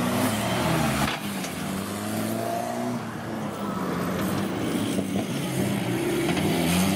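Off-road race car engines revving, the pitch climbing and dropping with throttle and gear changes. About a second in the sound breaks off abruptly and a different engine takes over.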